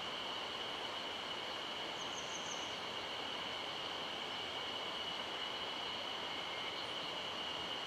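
A mountain stream running steadily, with a constant high-pitched drone over the water noise. A brief trill of about four quick high chirps comes about two seconds in.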